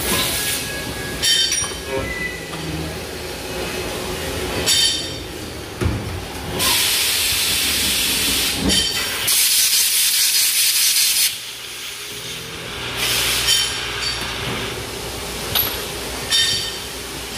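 CNC lathe with an automatic part loader running its cycle: sharp metallic clanks every few seconds as parts are handled, and loud hissing, the longest about halfway through lasting some four seconds.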